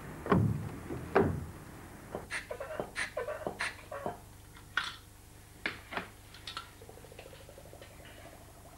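Two heavy thumps in the first second or so as books are laid on top of a chimney stack. Then a string of light clicks and clinks as a glass tube and metal fittings of a flue-gas measuring apparatus are handled, giving way near the end to a faint, fast, steady ticking.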